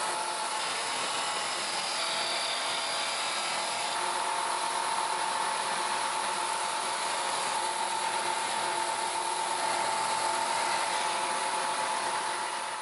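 Combination belt and disc sander running, its abrasive disc grinding the face of a small flat steel part held against it. A steady, even grinding hiss with a faint whine.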